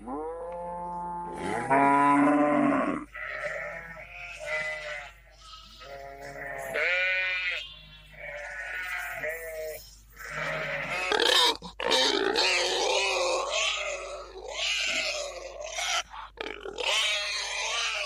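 A run of livestock and wild animal calls. It opens with a long, falling cow moo, followed by several shorter pitched calls up to about ten seconds in, then rough grunting from about ten seconds in to the end, with the wild boar seen at the end.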